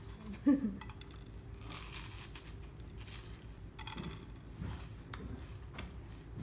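Rice Krispies treat being pulled apart by hand over a plate and bitten: scattered dry crackling and crunching of the puffed rice, with a brief vocal sound about half a second in.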